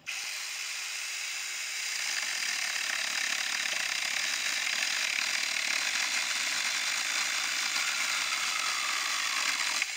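A Saker mini cordless electric chainsaw running on a 20-volt lithium battery, cutting through a small branch of red oak that has seasoned only three months: a steady whir of motor and chain chewing through the wood. It gets a little louder about two seconds in as the chain bites, and stops near the end once the cut is through.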